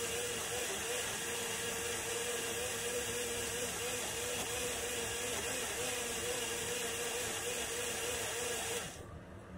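Midea personal blender's motor running steadily under load, blending a smoothie, with a slightly wavering whine over a hiss; it cuts off suddenly near the end.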